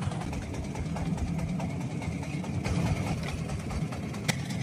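Small fishing boat's engine idling with a steady low rumble. There is a single sharp click near the end.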